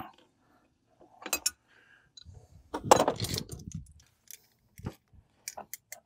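Metallic clinks and clatter of jumper-cable clamps and hand tools being handled at a battery's terminals, in short scattered bursts with the loudest cluster about halfway through.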